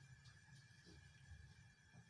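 Near silence: faint room tone with a low, steady hum.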